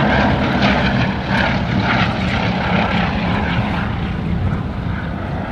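Twin Bristol Mercury radial engines of a Bristol Blenheim Mk I in flight, a steady propeller drone that gets gradually fainter near the end as the aircraft moves away.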